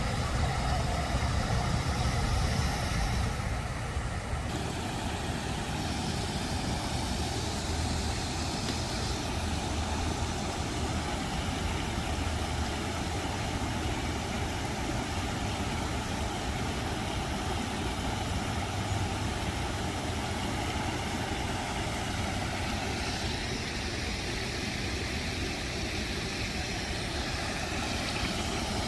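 Waterfall: water pouring and splashing steadily into a pond, a constant rushing.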